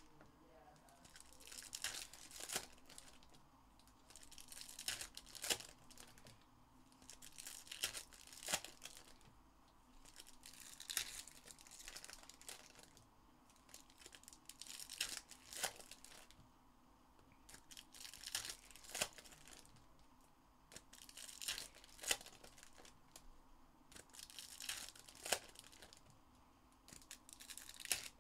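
Foil wrappers of Topps Chrome trading-card packs being torn open and crinkled, one pack after another, in bursts every two to three seconds with sharp crackles.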